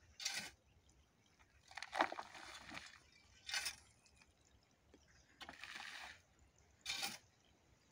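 Metal spade scraping into loose soil and scooping it, then the soil poured off the blade into a metal tube. Three short scrapes, with two longer sliding pours between them.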